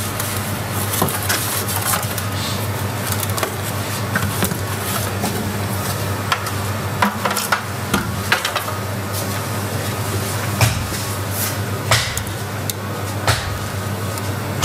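Scattered light knocks and clicks of a screwdriver and water-heater parts being handled on a workbench, over a steady low hum.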